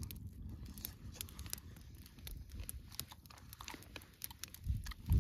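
A small wood campfire crackling and popping in irregular sharp ticks over a steady low rumble, with two louder low thumps near the end.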